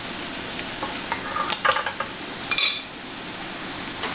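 Battered vegetable-peel fritters deep-frying in hot oil: a steady sizzle with a cluster of sharp crackling pops in the first half, and one short high-pitched ping about two and a half seconds in.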